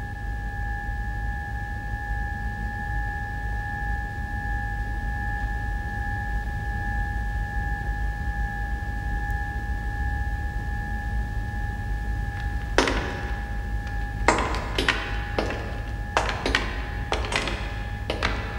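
Science-fiction TV sound effects: a steady low hum under a steady high electronic tone. About two-thirds of the way in, a run of sharp, irregular metallic knocks joins them.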